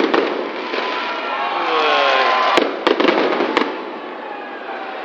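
Aerial fireworks exploding overhead: a sharp bang at the start and three more close together about two and a half to three and a half seconds in, over a continuous hiss of noise.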